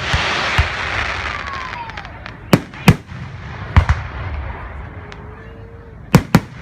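Fireworks going off: a loud crackling shower at the start that fades over a couple of seconds, then sharp bangs scattered through, some in quick pairs, with a faint whistle among them.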